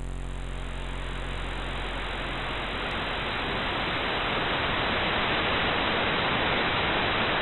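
Television static sound effect: an even white-noise hiss over a low hum, slowly growing louder and cutting off suddenly at the end.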